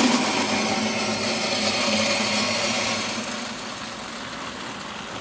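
Pecan-shell wood pellets pouring from a cardboard box into a pellet grill's hopper: a steady rushing rattle that thins out over the last couple of seconds as the box empties.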